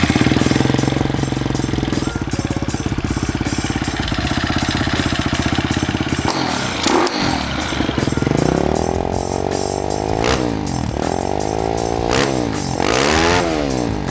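Kawasaki KLX110 pit bike's single-cylinder four-stroke engine, fitted with a Pro Circuit aftermarket exhaust, idling steadily. From about eight seconds in it is revved up and down several times in quick blips.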